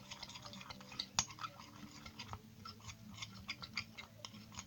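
Sticky, unfinished glue-and-baking-soda slime being worked in a plate, making many small irregular sticky clicks, with one sharper knock about a second in.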